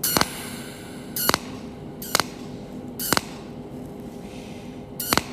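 Cold-welding machine firing short pulse welds on a red-copper strip lap joint: five brief sharp zaps at irregular intervals.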